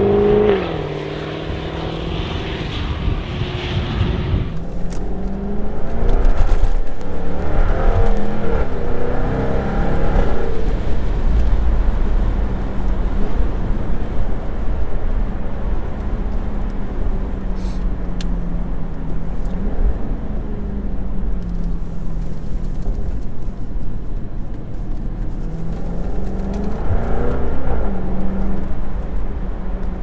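Jaguar F-Type V8 S's supercharged V8 driving, heard first from outside the car and, after a cut about four seconds in, from inside the cabin. The engine note rises under acceleration and drops at each gear change, loudest a few seconds after the cut and again near the end, and runs steadier while cruising in between.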